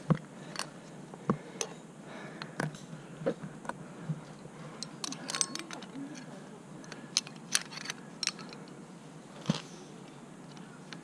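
Irregular sharp clicks and clinks from a climber's metal gear and movement on rock: quickdraw carabiners clinking, with one clipped into a bolt hanger partway through, and taps of hands and shoes on the rock.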